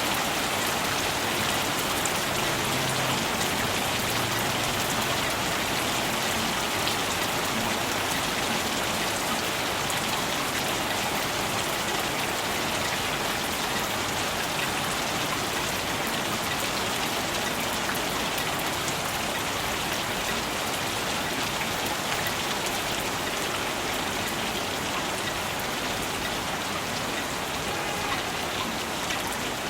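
Steady rain falling, an even hiss with many fine drops pattering on surfaces.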